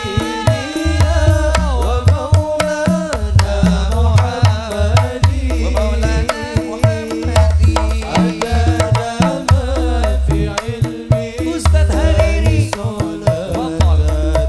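Hadrah sholawat music: hand-played frame drums (rebana) and a goblet drum (darbuka) keep a brisk, steady rhythm with deep bass thumps on the beat, under a bending melody line.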